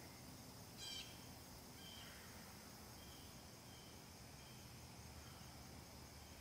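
Near silence: a faint, steady high insect drone, with a short bird chirp just before a second in and a few faint chirps after it.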